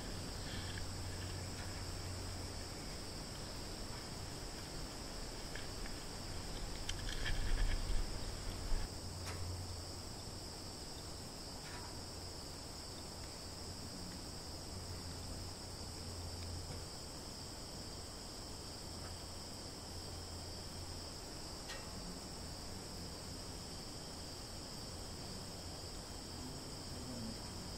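Crickets chirring steadily in a high, even chorus. For the first nine seconds or so there is also a low rumble and a few rustles and bumps, loudest about seven to nine seconds in.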